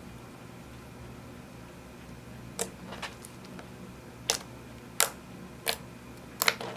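Slime being pressed and worked by hand, giving about six sharp sticky pops at uneven intervals over a faint steady hum. The first two seconds or so hold only the hum.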